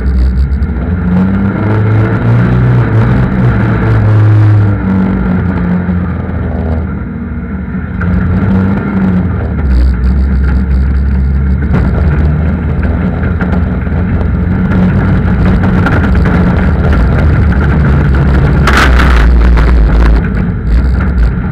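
Land Rover 300Tdi four-cylinder turbo-diesel engine revving up and easing off under load as the truck crawls over rocks, with knocks and clatter from the chassis. A short rush of noise comes near the end.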